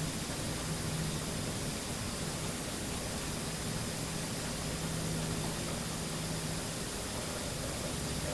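Steady static hiss with a low hum that comes in for a second or two at a time and fades out.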